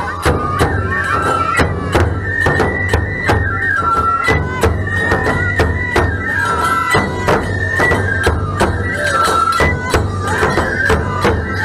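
Nebuta bayashi festival music played live: high bamboo flutes carry a melody over taiko drums and clanging hand cymbals, with a steady beat.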